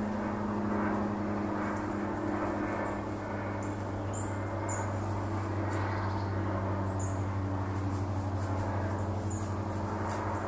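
A steady low hum throughout, with short high-pitched squeaks every couple of seconds, some in quick pairs.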